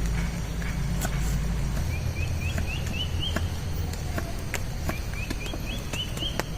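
Steady rain with a low rumble and scattered drop clicks. A bird calls twice over it, each call a run of about six short chirps, each higher than the last.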